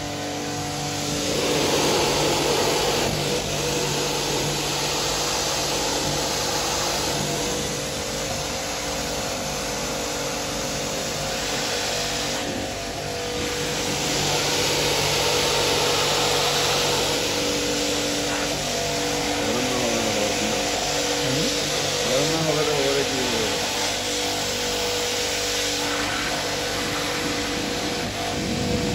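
High-pressure spray hissing steadily as it is played across the radiator core, swelling and easing as it moves, over a steady motor hum.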